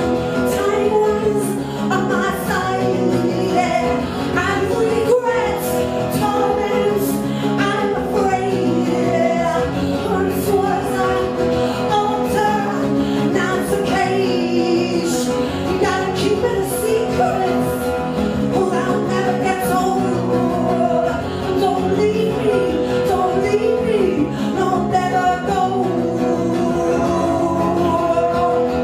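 A woman singing with her own strummed guitar accompaniment, the chords repeating in a steady rhythm under her voice.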